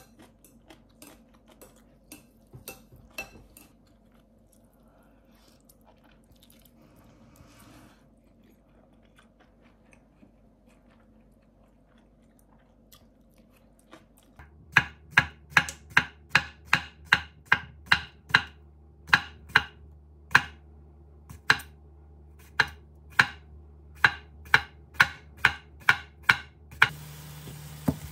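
Soft sounds of eating ramyeon with chopsticks from a ceramic bowl, then a long run of loud, sharp knocks about one to two a second. Near the end, ground meat starts sizzling in a stainless steel frying pan.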